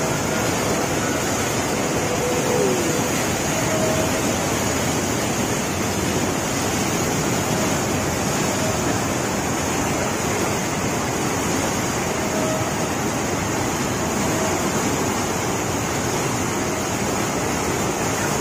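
Muddy flash-flood river rushing and churning in a loud, steady wash of water noise.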